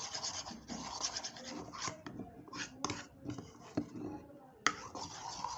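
Spoon stirring and scraping a runny shampoo-and-salt mixture in a bowl, with irregular scratchy strokes and a sharp click near the end.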